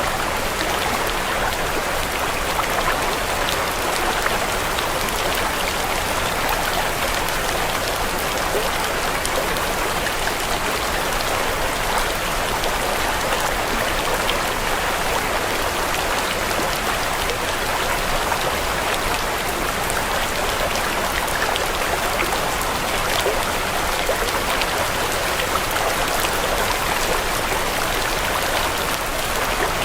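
Steady recorded rain: an even hiss of falling water with a fine patter of drops, unchanging throughout.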